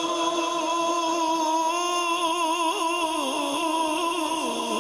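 A religious reciter's singing voice holding one long, drawn-out note of a naat refrain. The note wavers in quick ornaments in the middle, then steps down in pitch toward the end.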